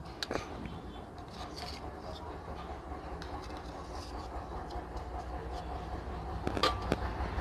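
Low steady background rumble, with a few sharp clicks shortly after the start and again near the end.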